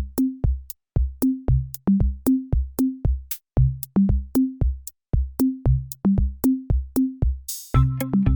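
Background music: a bare drum beat of low kick thuds alternating with higher pitched drum hits, about three strikes a second. Near the end a cymbal-like swell leads into a fuller backing with a sustained bass line.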